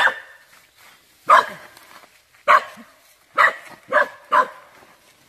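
A dog barking: six sharp barks with gaps between them, the last three coming in quicker succession.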